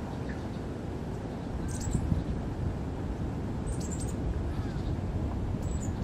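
Eurasian tree sparrows chirping now and then: three short, high chirps about two seconds apart, with fainter gliding calls between, over a steady low background rumble.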